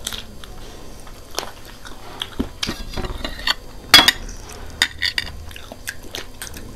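Close-up eating sounds: chewing and biting on fried chicken feet and instant noodles, with chopsticks and a fork clicking against ceramic plates. A sharp click about four seconds in is the loudest.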